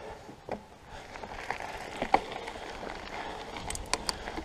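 Mountain bike rolling on a gravel trail: tyres on loose gravel, with a few sharp clicks and rattles from the bike, growing slightly louder as it picks up speed.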